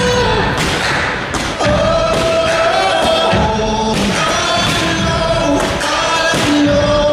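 A song with long-held sung notes playing loud over a sound system, crossed by irregular thuds and bangs of aerial fireworks bursting.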